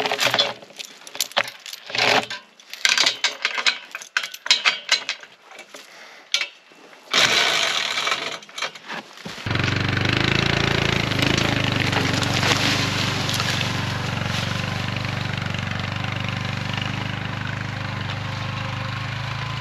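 A steel log chain clinks and rattles as it is wrapped around a log on an ATV log arch. About nine seconds in, the ATV's engine starts and runs steadily as the quad pulls away with the log, easing off slightly toward the end.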